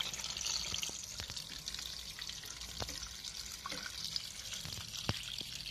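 Trapped water trickling and dripping out of a washing machine's drain-pump filter as it is unscrewed, with faint clicks of the plastic cap. The water is left in the drum because the machine cannot drain (error F05).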